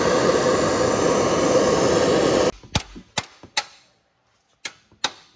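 Handheld gas torch flame hissing steadily as it heats a rust-seized turbo stud, cutting off about halfway. Then five sharp hammer strikes on a bolt extractor driven onto the stud.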